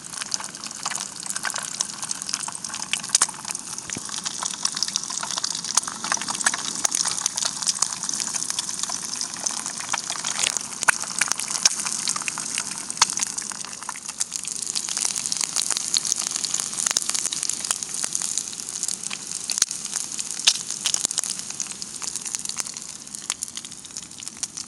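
Eggs frying in oil in a pan on a gas camping stove: a steady sizzle with constant crackling and popping spits.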